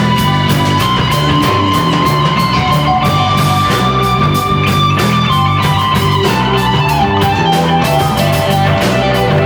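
Live rock band playing an instrumental passage: electric guitar holds long lead notes that step from pitch to pitch over a moving bass line and steady drums.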